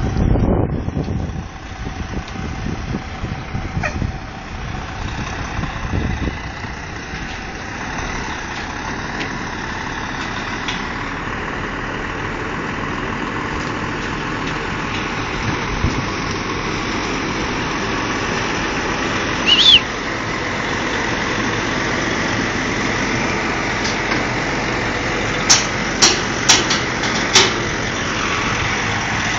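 Diesel semi-truck pulling a heavy lowboy trailer, its engine running steadily as it moves slowly closer and grows gradually louder. A brief high squeak comes about two-thirds of the way in, and a few sharp clicks near the end.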